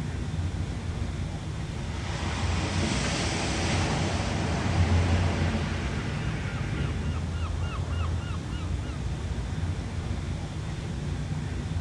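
Ocean surf washing steadily, with one wave surging and breaking louder about two to five seconds in. Past the middle comes a quick run of about eight short, pitched calls.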